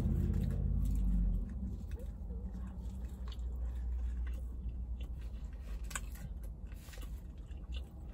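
A person chewing a mouthful of fried chicken biscuit close to the microphone, with scattered small mouth clicks. A low hum is heard during the first second or so.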